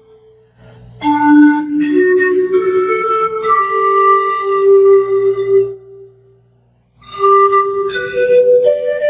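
Pan flute playing a slow melody of held, breathy notes. The melody starts about a second in, stops for about a second just past the middle, then resumes with a rising phrase.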